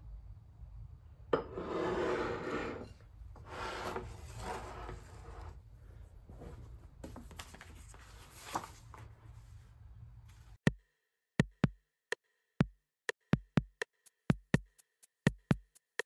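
A porcelain cup being set down on its saucer and the rustle of book pages being leafed through. About ten seconds in, a string of sharp, irregular clinks of a fork and knife against a ceramic plate.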